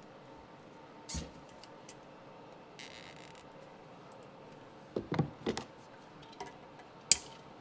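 A plastic zip tie is pulled tight with a short, high ratcheting zip. Clicks and knocks come from hands working among the hoses and wiring of a jet ski engine bay, ending in a sharp click near the end.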